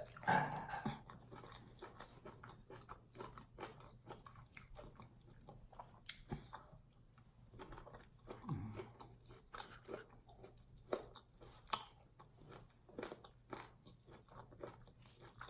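Close-miked chewing and biting of fried chicken gizzards and fries: many irregular small crunches and clicks.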